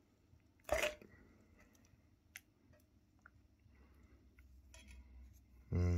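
A plastic fork prodding shrimp in a frying pan of melted butter: one short, sharp clatter about a second in, then a few faint clicks. A man's voice starts just before the end.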